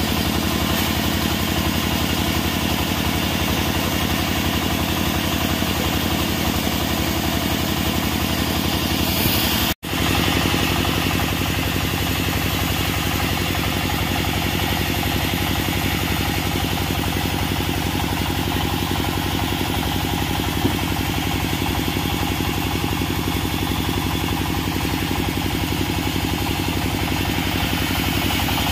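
Small single-cylinder diesel engine running steadily at a constant speed, driving a portable band sawmill. The sound drops out for an instant about ten seconds in.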